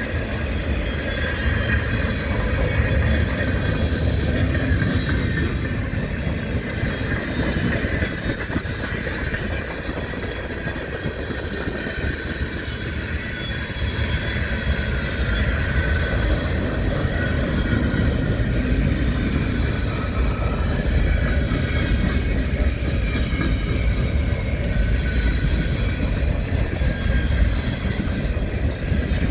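Train rolling past, its cars making a steady heavy rumble on the rails, with a thin high wheel squeal over it.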